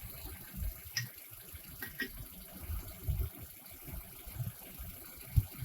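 Lug wrench working on a wheel's lug nuts: a few faint metal clicks among dull low bumps of handling.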